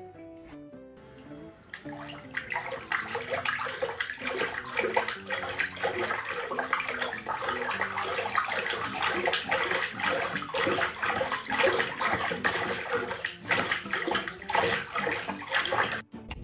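Tap running into a filling bathtub while a cat paws and splashes at the water, a dense, uneven rush of water starting about two seconds in. Soft plucked guitar music plays at the start, with faint music under the water.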